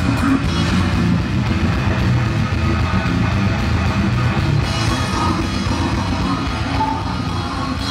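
A rock band playing at a steady loud level, with guitar and a drum kit.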